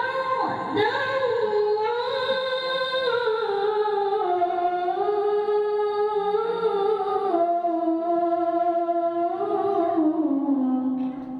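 A young girl's voice reciting the Qur'an in melodic tilawah style, holding one long ornamented phrase that steps gradually down in pitch toward the end.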